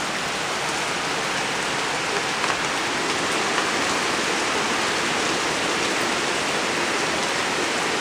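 Heavy rain pouring down on a gravel driveway and wooden porch: a steady, even hiss.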